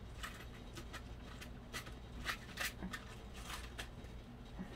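Faint scattered clicks and rustles of small craft supplies being handled and rummaged through, over a low steady hum.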